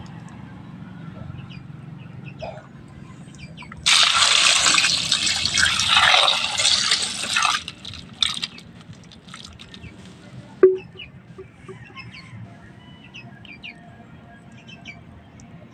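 Water pouring and splashing for a few seconds, then one sharp knock. Faint bird chirps run underneath.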